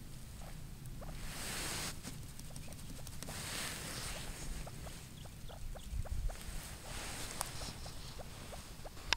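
Ruffed grouse giving a run of soft, quick clucks, a few a second, with two brief rustles in the first four seconds.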